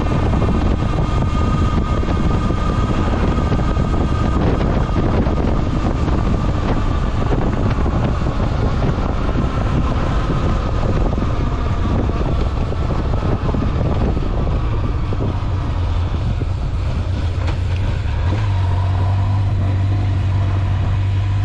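Honda Nighthawk 750's air-cooled inline-four engine running on the move, with heavy wind noise on the microphone. About 18 seconds in, the engine's low hum grows stronger and steadier.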